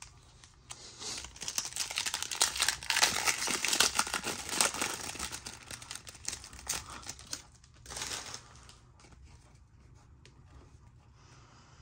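Wrapper of a Panini Select basketball card pack being torn open and crinkled, a dense crackling rustle for several seconds that dies away, with one more short rustle about eight seconds in.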